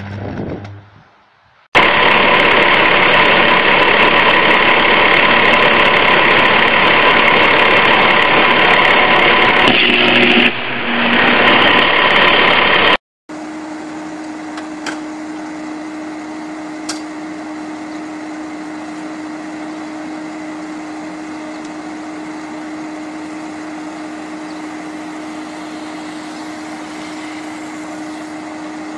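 High-voltage power line arcing: a loud, harsh electrical buzz that runs about eleven seconds and cuts off suddenly. It is followed by a quieter steady electrical hum with one held tone from a utility pole, with a faint crack or two.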